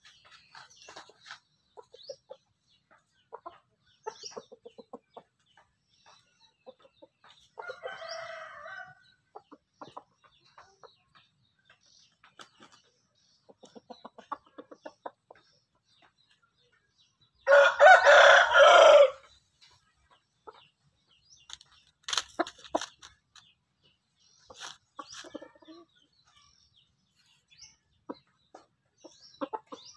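Rooster crowing once, loud and about two seconds long, about two thirds of the way in, with quieter clucking and short calls scattered through the rest.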